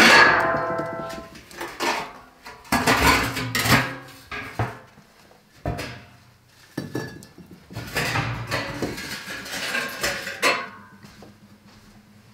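A metal clang that rings for about a second, then scraping and rattling as a metal baking tray is dragged across the brick floor of a wood-fired oven and pulled out.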